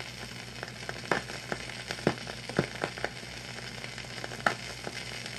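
Old-film crackle effect: a steady hiss with a faint hum, broken by scattered, irregular pops and clicks, about one or two a second.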